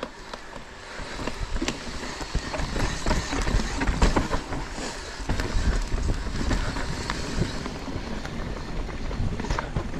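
Mountain e-bike ridden over rough trail: irregular knocks and rattles from the bike, with wind rumbling on the microphone.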